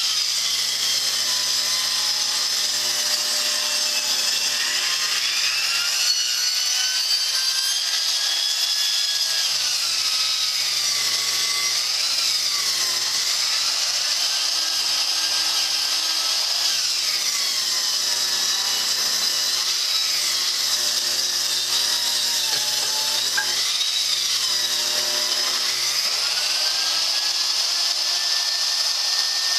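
Table saw's circular blade ripping a long wooden board. The pitch repeatedly sags and climbs back as the blade is loaded and unloaded during the feed. Near the end it rises and holds steady as the blade comes back up to speed.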